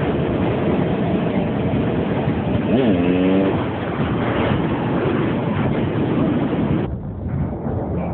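Motorbike and vehicle engines running, with a short pitched rev that rises and then holds about three seconds in. The sound changes abruptly near the end.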